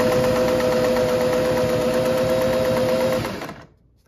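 Singer 403A sewing machine running steadily, stitching through two layers of denim with a steady motor hum. It winds down and stops about three and a half seconds in.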